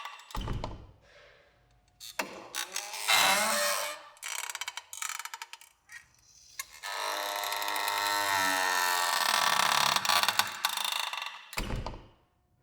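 Door hinges creaking as the door is swung, in several long creaks that waver in pitch. There is a low thud about half a second in and another near the end.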